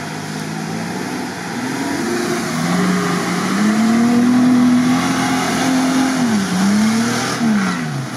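Mitsubishi Pajero's engine revving under load as it drives through a flooded track and onto mud. The pitch climbs, holds high, dips briefly about six and a half seconds in, then rises again and falls near the end.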